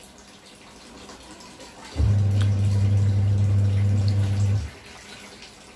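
Washing machine motor humming low and steady for about two and a half seconds in the middle, switching on and off sharply between quiet stretches, as it runs its wash cycle.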